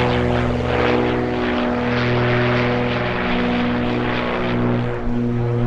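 Aero Commander's twin piston engines and propellers running at power in flight: a loud, steady drone of several tones that shift in pitch a few times.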